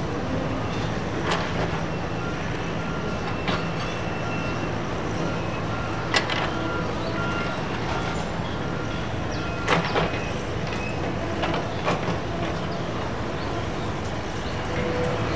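Steady low rumble and hiss of engines running, from a taxiing Boeing 747 freighter's jet engines and the diesel machines of a road crew working alongside, with faint steady whining tones. About half a dozen sharp knocks and clanks from the machinery and work are scattered through it.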